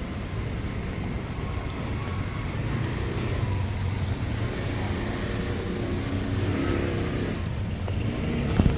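City road traffic, with a motor vehicle's engine running close by for a few seconds midway. A short knock near the end.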